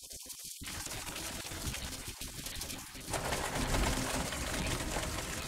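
Film trailer sound effects from the Dolby Atmos overhead height channels alone: a dense, rushing noise with a flutter in it, growing louder about three seconds in.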